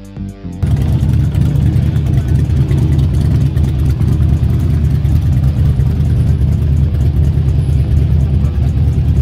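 Motorcycles riding past one after another, their loud exhaust coming in suddenly about half a second in and holding steady.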